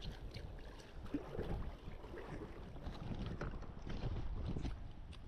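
Faint water sloshing and splashing with a low rumble of wind on the microphone.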